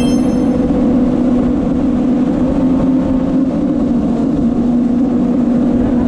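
Yamaha 1200 jet ski engine running steadily at cruising speed, one unchanging drone over a constant rush of wind and water. A short sparkling chime sounds at the very start.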